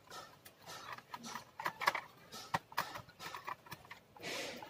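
Screwdriver undoing the plastic bottom-case screws of a Toshiba C640 laptop: a scatter of small irregular clicks and taps of the tool and screws against the case, with a short rustling scrape near the end.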